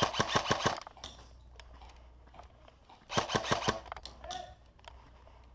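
Airsoft gun firing two quick bursts of about seven shots each, one at the start and another about three seconds in, with a few single clicks between.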